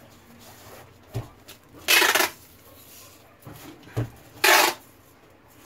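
Hand work on a foam fishing float: two short rasping strokes, each about a third of a second long, about two and a half seconds apart, each following a soft knock.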